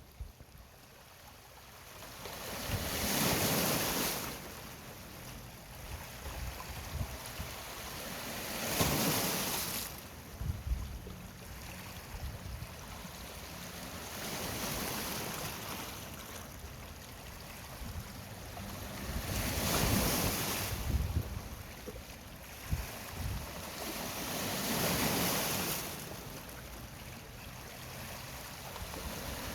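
Sea waves breaking and washing in, the surf noise swelling and fading about every five to six seconds, with wind rumbling on the microphone.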